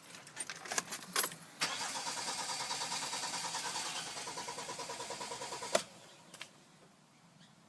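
Car engine cranking over on its starter for about four seconds with an even, rapid pulsing but not catching, then stopping with a click: a crank-no-start. A few key clicks come before it.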